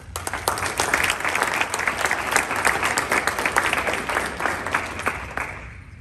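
Audience applauding, a dense patter of many people clapping that dies away near the end.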